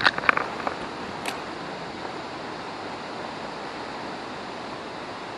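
Steady rushing wind noise on the microphone. A few sharp clicks come in the first second and one more just after, from the spinning reel being handled after a cast.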